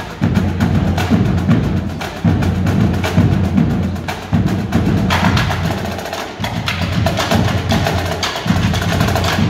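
High school drumline playing: snare drums and other marching drums in rapid, dense strokes.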